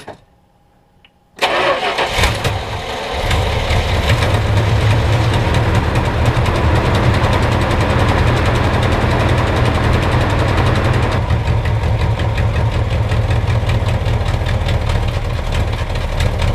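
1974 Dodge Challenger's 318 V8 started: about a second and a half in, the starter cranks briefly, the engine catches and settles into a steady idle.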